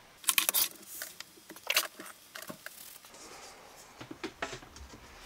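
A blue silicone work mat carrying a breadboard, test leads and multimeters being pushed across a wooden desk, giving several short scrapes and knocks in the first three seconds. Quieter handling sounds follow as a dry-erase board is laid down on the desk.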